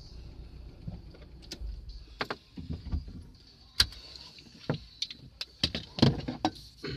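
About a dozen irregular sharp clicks and knocks inside a vehicle cab, over a low rumble that fades about three seconds in.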